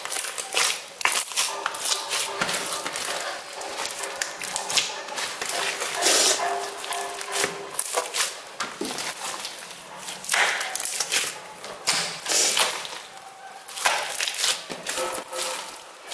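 Hands kneading and squeezing a large mass of beaded slime: irregular wet squelching with quick crackling pops as air pockets burst.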